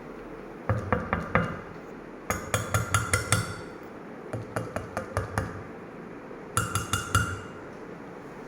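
A gold ring knocked against an imported marble slab in four quick bursts of about four to six knocks each, every knock a sharp clink with a short bright ring. This is a knock test to show the sound of the marble.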